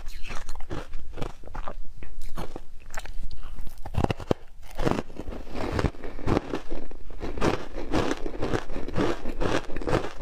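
Close-up crunching and chewing of frozen milk ice, a rapid run of crackling bites. A few sharp, loud bites come about four seconds in, followed by denser crunching.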